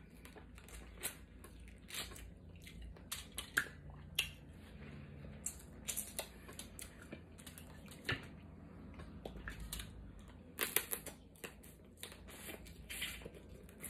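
Close-up eating of snow crab legs: irregular cracks and crackles of the shells, with wet sucking and smacking as the meat is pulled out. Louder clusters of cracks come about three seconds in and again near the end.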